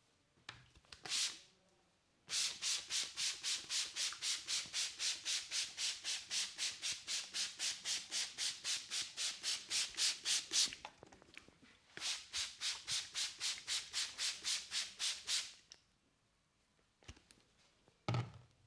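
Hand spray bottle misting water in quick hissing squirts, about four or five a second: one squirt, then a run of about eight seconds, a short pause, and a second run of about three and a half seconds. A short knock near the end.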